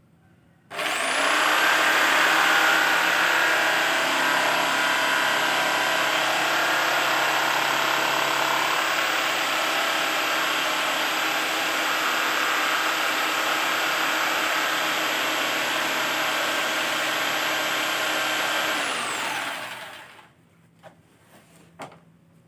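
A handheld electric power tool starts up with a quick rising whine, runs steadily at full speed for about eighteen seconds, then winds down and stops.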